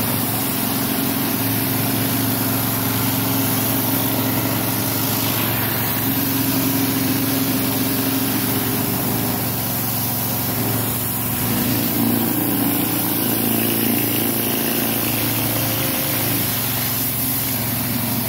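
Pressure washer running steadily: its engine or pump hum under the constant hiss of high-pressure water from a rotary surface cleaner on paving blocks.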